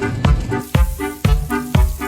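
Background music with a steady beat of about two low drum hits a second under short, repeating pitched notes.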